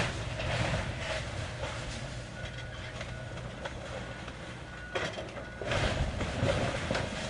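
Excavator demolishing a wood-frame house: the diesel engine runs steadily under cracking and clattering debris, with a sharp crack about five seconds in and heavier crunching after it.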